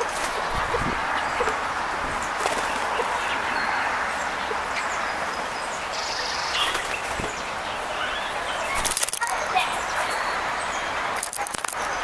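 Small songbirds chirping now and then over a steady outdoor hiss, with a few short flutters and taps as birds fly to and from a picnic table, one of them near the end.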